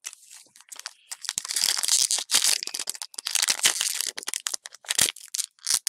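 Foil wrapper of a Pokémon Trading Card Game booster pack crinkling and crackling as hands work it open; faint at first, then a dense run of crackles from about a second in.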